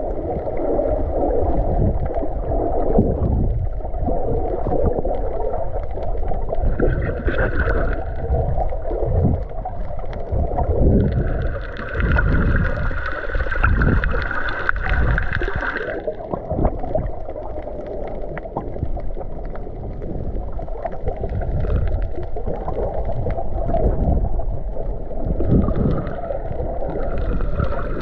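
Water sound picked up by a camera held underwater: a continuous low rush and gurgle of water moving over the microphone. A higher hiss joins it briefly about seven seconds in, for several seconds in the middle, and again near the end.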